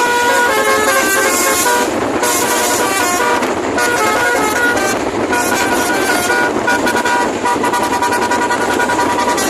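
Basuri 'telolet' musical horn playing a tune of held notes that step from one pitch to the next, over a steady noisy background.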